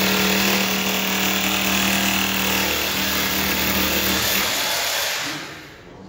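A steady motor drone with a strong low hum, fading away about five seconds in.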